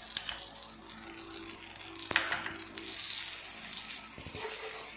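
Butter sizzling as it melts in a hot non-stick pan. There is a light tap about two seconds in, and the sizzle grows brighter from about three seconds in as a steel spoon spreads the butter across the pan.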